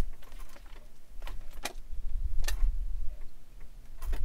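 A few sharp clicks and light knocks, spaced irregularly, over a low steady rumble.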